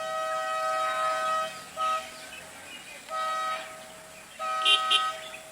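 Vehicle horn honking four times: one long blast, a short tap, then two shorter blasts, each on the same steady two-note pitch. Two sharp, loud sounds come near the end, during the last blast.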